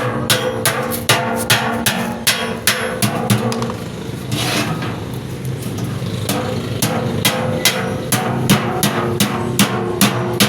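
Hammer blows on metal at an anvil, roughly three a second, pausing for about two seconds midway before resuming, over background music.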